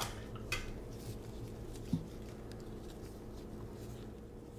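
Low steady room hum with a few faint clicks near the start and a soft knock about two seconds in.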